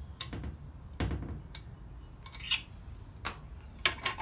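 Metal tools clinking and knocking against the flywheel and crankshaft end of a Briggs & Stratton small engine: several separate sharp clicks, with a duller thump about a second in.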